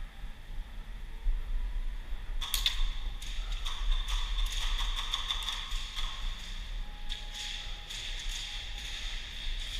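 Airsoft gunfire in the arena: a rapid, irregular clatter of sharp clicks and BB impacts that starts about two and a half seconds in and keeps going.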